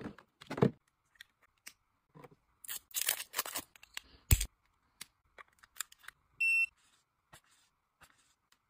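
Small plastic skincare items handled in an acrylic organizer, clicking and tapping, then a plastic ampoule twisted and broken open with a crackle and a single sharp snap about four seconds in. Later a short electronic beep from a handheld LED light-therapy beauty device.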